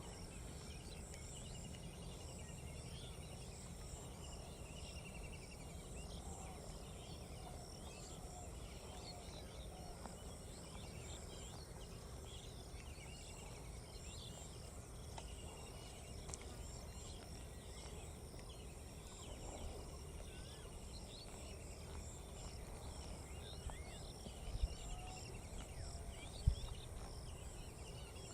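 Outdoor ambience of many small birds chirping and trilling over a steady high insect-like hum and a low rumble, with two short thumps near the end.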